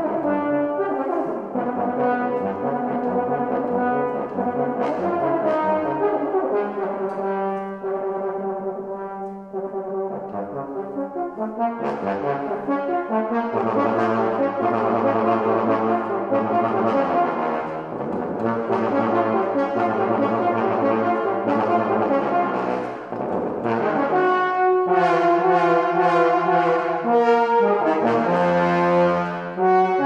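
Tenor and bass trombone playing a contemporary duet: two lines of overlapping held notes. Through the middle stretch the bass trombone holds low notes under the tenor, and the playing breaks off briefly about two-thirds of the way in.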